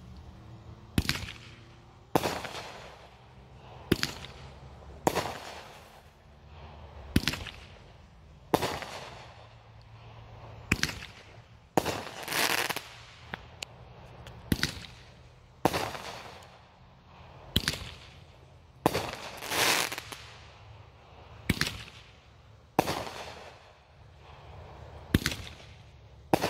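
Aerial fireworks bursting in a steady run, a sharp bang about every second to second and a half, each trailing off in a fading rumble. Twice, about halfway and about three-quarters through, a longer hissing crackle rises and falls.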